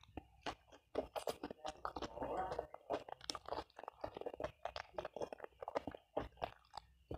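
Chicken neck being bitten and chewed close to a clip-on microphone: a run of short, irregular crunches.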